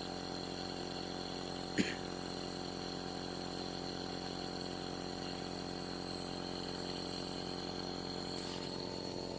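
Compressor nebulizer's motor running with a steady hum while it nebulizes medicine through a mask. A single brief knock comes about two seconds in.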